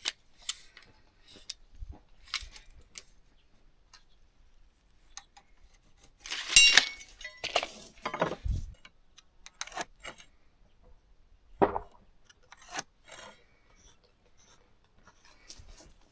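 Scattered light knocks and metallic clinks of carpentry hand tools and timber being handled while the runners are marked out. The loudest is a short ringing metal clink about six and a half seconds in.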